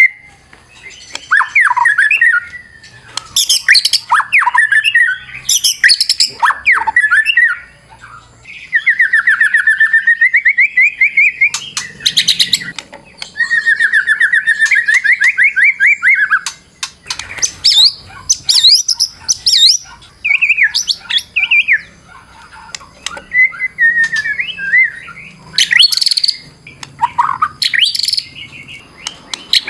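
White-rumped shama (murai batu) singing a loud, varied song: sweeping whistled phrases and sharp harsh notes, with two long, fast trills in the middle.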